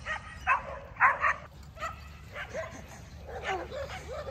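A pack of dogs barking in quick runs of short, loud barks over the first second and a half, then fainter yips and whines.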